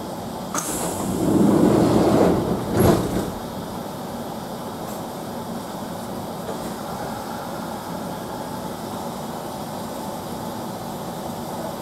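Kintetsu train's sliding passenger doors closing: a short hiss about half a second in, the doors sliding for about two seconds and shutting with a knock near three seconds. After that, a steady hum inside the carriage.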